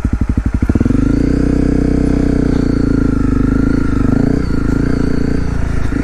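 Honda CRF250L's single-cylinder four-stroke engine thumping at idle, then rising about a second in to a steady higher speed for several seconds before dropping back toward idle near the end.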